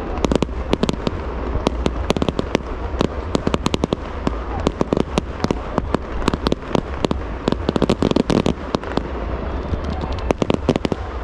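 Fireworks show going off: a dense, rapid run of sharp cracks and bangs, many each second, over a steady low rumble.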